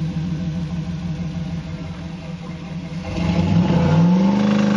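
Off-road rig's engine idling under the driver's control, then revved up about three seconds in, its pitch rising and holding high.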